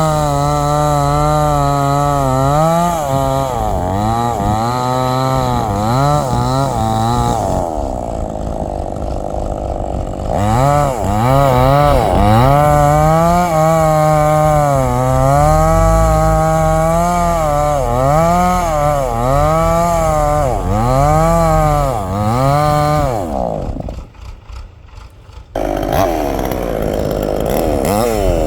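Chainsaw cutting wood. The engine's pitch sags and recovers over and over as the chain bites into the wood and frees up again. Near the end it goes much quieter for a second or two, then comes back.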